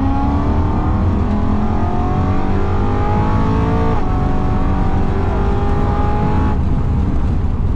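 BMW E92 M3's V8, with aftermarket downpipes, accelerating hard, heard from inside the cabin: its pitch climbs, drops sharply at an upshift about four seconds in, and climbs again. A little before the end the engine note breaks off into a rougher noise as the throttle comes off.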